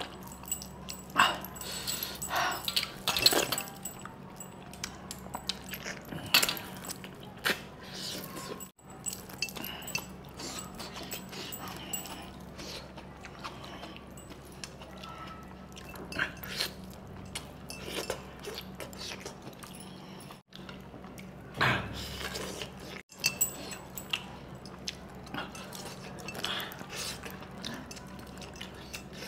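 A person eating mutton with his hands: scattered wet chewing, slurping and smacking sounds as he bites and sucks meat off the bone, over a steady low hum.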